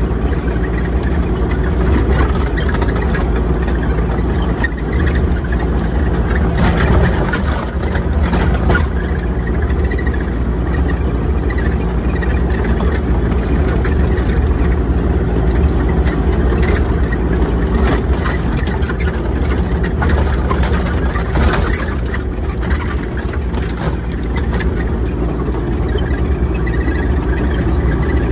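Excavator's diesel engine running steadily, with scattered clicks and rattles over the steady hum.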